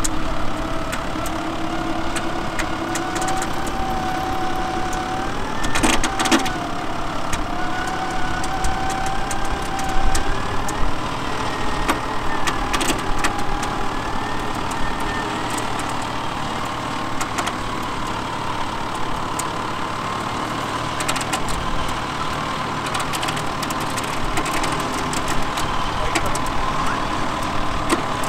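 A 4x4 engine running steadily under load as a bogged SUV is pulled forward through sand on a recovery line, its pitch climbing slowly. A few sharp knocks come about six and thirteen seconds in.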